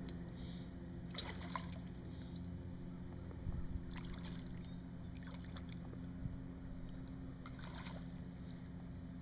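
Faint splashes of a hooked fish thrashing at the water's surface as it is reeled in beside a kayak, in a few short bursts with the strongest about three and a half seconds in, over a steady low hum.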